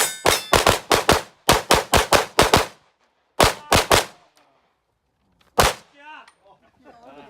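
Pistol shots fired rapidly in quick strings of several a second: about a dozen shots in the first three seconds, three more shortly after, then a last single shot. Faint voices follow near the end.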